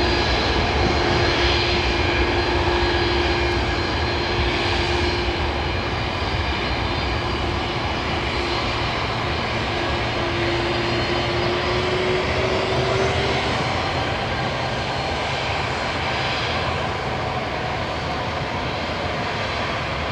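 Airbus A330's twin turbofan engines running at taxi power as the airliner rolls along the taxiway. The sound is a steady jet rush and whine, with a hum that rises slightly in pitch about halfway through before fading, and it slowly grows quieter.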